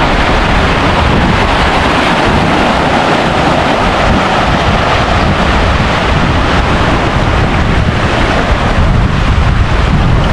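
Sea surf washing against rocks as a steady rush, with wind buffeting the microphone in an uneven low rumble.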